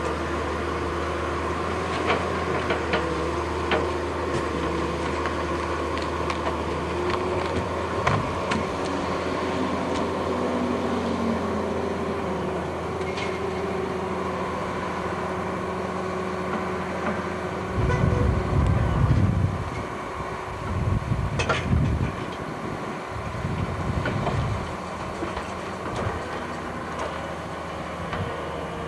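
Diesel engine of a tracked log loader running steadily as it swings and lifts logs onto a logging truck, with occasional sharp knocks and a few heavier low rumbles about two-thirds of the way through.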